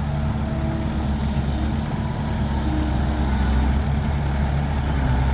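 Dump truck's diesel engine idling steadily with a low, even hum.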